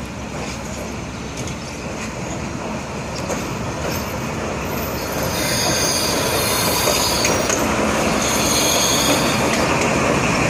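A narrow-gauge class 75 diesel locomotive pulls its train into a station, its engine and wheels rumbling louder as it approaches. About halfway through, a high, many-toned squeal from the wheels and brakes sets in as it draws alongside and slows.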